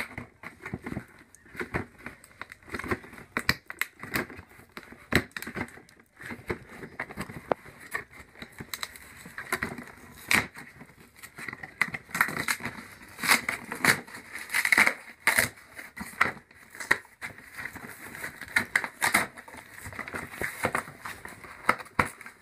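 A cardboard toy box being handled and opened by hand: irregular rustling and scraping of cardboard and packaging, with scattered sharp clicks.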